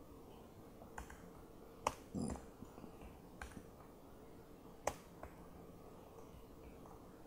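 A few separate, sharp keystroke clicks on a laptop keyboard, spaced about a second or more apart, with a short muffled sound just after the second one. A faint steady hum runs underneath.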